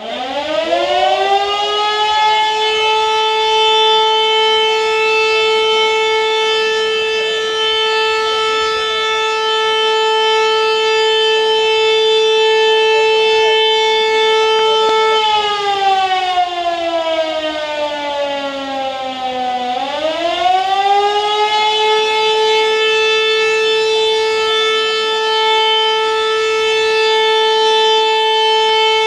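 A siren winds up in pitch to a steady tone and holds it for about fifteen seconds, then slides down for a few seconds and winds back up to the same tone. It is the siren that signals the start of a fire festival.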